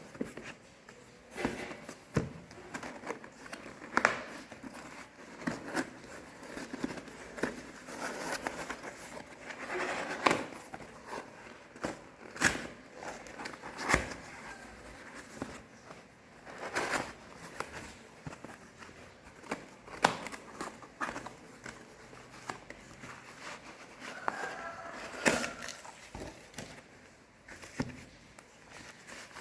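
Packaging being handled during a phone unboxing: plastic and paper crinkling and tearing, with irregular sharp clicks and taps as parts of the box are opened and handled.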